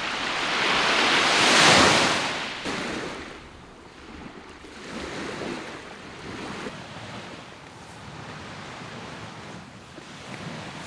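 Lake Superior surf washing onto the shore, with one big surge about two seconds in and smaller waves after it, and wind in the background.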